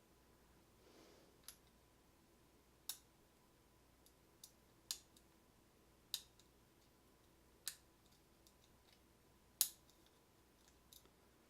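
Lock-picking clicks from a stock Schlage deadbolt with spool pins as a pick works its pin stack under tension. There are scattered sharp metallic clicks, roughly one every second or two, at uneven intervals.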